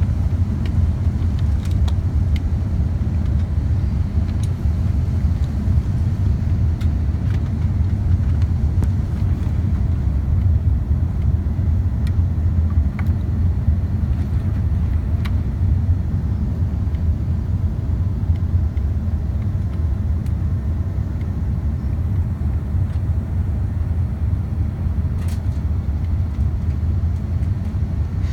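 Steady low rumble of engine and airflow noise inside the cabin of an Airbus A380 on approach, with a few faint ticks.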